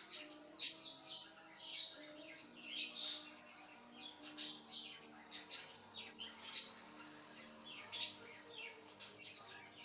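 Pet lovebird giving shrill, sharp chirps, repeated irregularly in quick clusters.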